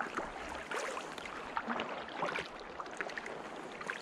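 A packraft being paddled: light, irregular splashes and drips of water from the paddle blades.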